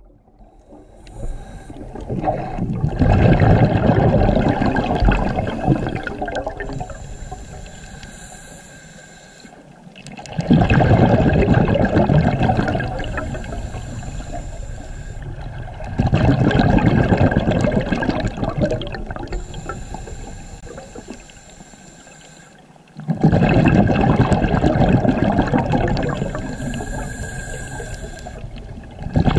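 Scuba diver breathing through a regulator underwater: a loud rush of exhaled bubbles about every six to seven seconds, each fading away over several seconds, with a faint hiss of the regulator on the inhale between them.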